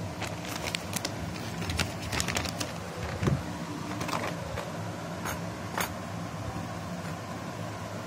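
Graphics card packaging being handled: scattered light clicks and rustles of the plastic anti-static bag and cardboard tray, clustered in the first six seconds, over a steady low background hum.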